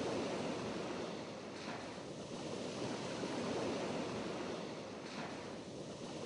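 Steady wash of ocean surf breaking on a sandy shore, with two brief swells, about two seconds in and again about five seconds in.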